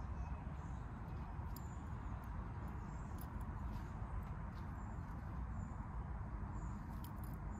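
Steady outdoor background noise with faint, scattered high ticks or chirps.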